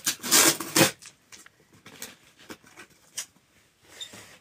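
Packing tape ripped off a cardboard parcel box in a loud rasp lasting under a second, followed by faint scattered rustles and clicks of the cardboard being handled.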